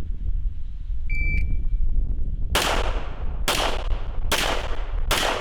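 A shot timer beeps once. About a second and a half later a gun fires four shots, roughly one every 0.8 s, each a sharp crack with a trailing echo, the start of a timed Bill drill.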